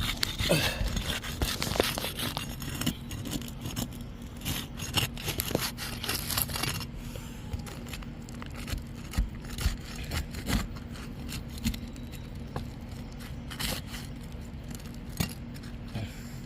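Asphalt roof shingles being lifted and worked loose to reach the nails: irregular scraping, crackling and clicks, busiest in the first several seconds and sparser after.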